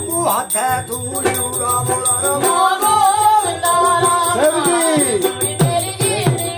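Male folk singer singing a musada ballad in a bending, gliding voice over a long-necked plucked lute strummed in a steady rhythm.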